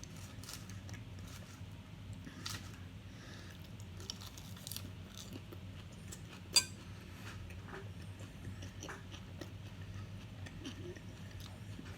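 A person chewing a meal of chicken nuggets and salad, with small scattered mouth and food clicks and one sharp click about six and a half seconds in, over a low steady hum.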